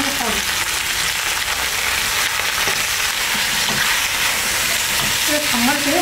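Bone-in lamb pieces sizzling in hot oil in a pot while a spatula stirs and turns them.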